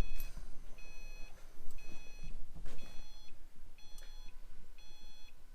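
A 2014 Subaru STI's electronic warning chime beeping repeatedly, one short high beep about every second, with the key in and the battery just reconnected.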